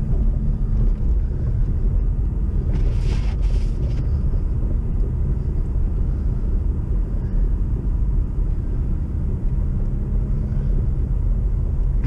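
Steady low rumble of a car driving on a snow-covered road, heard from inside the cabin, with a brief hissing swish about three seconds in.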